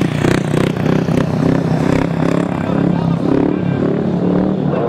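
500cc speedway motorcycle, a single-cylinder methanol-fuelled engine, running at low revs with its pitch rising and falling.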